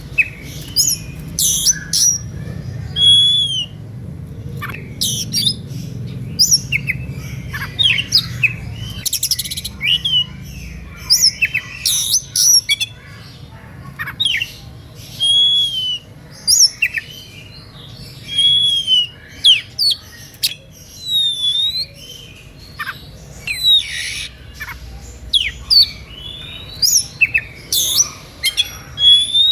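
Oriental magpie-robin (kacer) singing in a fired-up, nonstop way: a dense run of short whistled notes and slurs, rising and falling, broken by harsh rasping notes.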